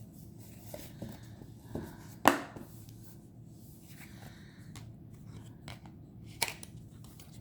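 Hands handling a new tarot deck: soft rustling with a few sharp taps, the loudest about two seconds in and another near the end.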